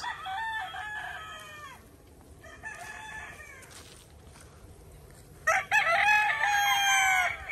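Roosters crowing: a crow at the start, a fainter one about three seconds in, then a louder, longer crow starting about five and a half seconds in, each call falling in pitch at its end.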